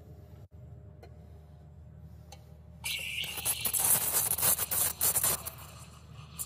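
Espresso grinder grinding coffee beans, a loud gritty crackling burst that starts about halfway through and stops after roughly two and a half seconds, preceded by a few light knocks.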